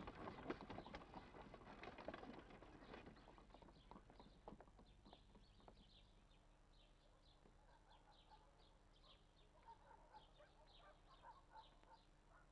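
Faint hooves and wheels of a horse-drawn cart clattering, fading away over the first few seconds. Small birds chirp faintly through the rest.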